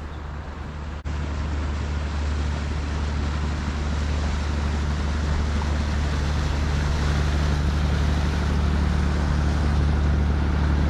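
Motor cruiser's engine droning low and steady as the boat passes, under a broad rushing noise of water and air. The sound jumps up about a second in and then grows gradually louder.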